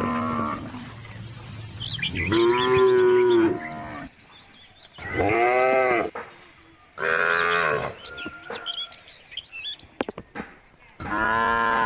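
Cows mooing: four long calls a few seconds apart, each lasting about a second.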